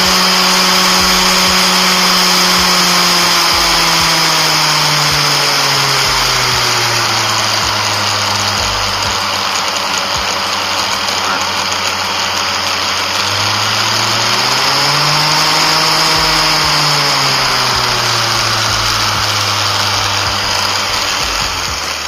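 Angle grinder motor running with no load while its speed is varied by an AC speed regulator: the whine drops to a lower pitch over a few seconds, climbs partway back up about two-thirds of the way through, then settles low again.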